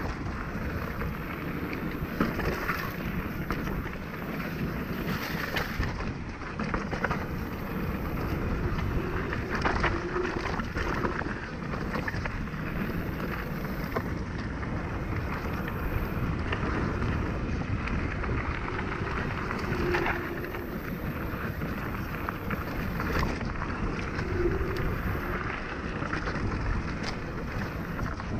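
Mountain bike riding down a dirt trail: wind rumbling on the camera's microphone and tyres rolling over dirt and stones, with frequent knocks and rattles from the bike over bumps.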